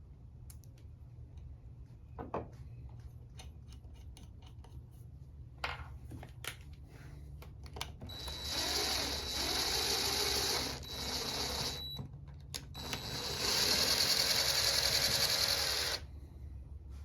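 Scattered light clicks of tools and parts being handled, then a small power tool running in three bursts of a few seconds each, with a steady high whine.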